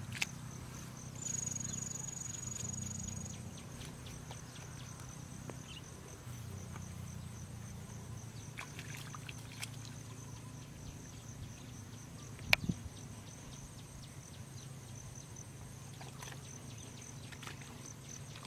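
Outdoor ambience with a steady high-pitched insect drone, a second higher whine for about two seconds near the start, and scattered small water splashes and clicks. A single sharp knock about twelve seconds in is the loudest sound.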